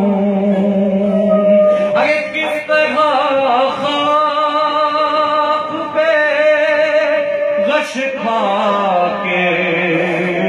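A man's solo voice chanting a noha, a Shia mourning lament, into a microphone without accompaniment. He holds long, wavering notes that slide between pitches.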